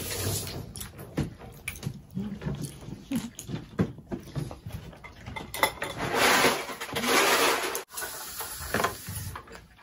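Close-up eating sounds of boiled shellfish: chewing and sucking at the meat, with many small clicks and cracks as crab and shrimp shells are pulled apart by hand. A louder rushing noise lasting about a second and a half comes about six seconds in.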